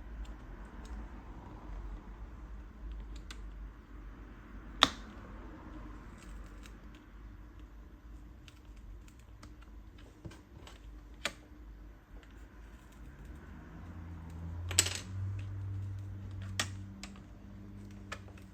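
Small plastic and metal clicks and taps of hand tools and parts being handled on a laptop's screen assembly, scattered irregularly. There is one sharper click about five seconds in and two more near the end, over a low hum in the last few seconds.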